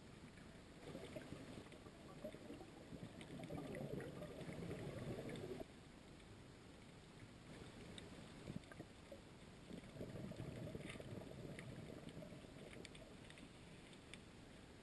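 Muffled underwater ambience: a low rumbling water noise that swells for a few seconds, cuts off abruptly, then swells again more briefly, with faint scattered clicks and crackles over it.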